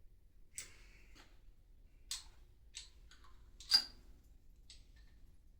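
Scattered light metal clicks and clinks of exhaust manifold parts and hand tools being handled on the engine, about six in all, the sharpest about two-thirds of the way through.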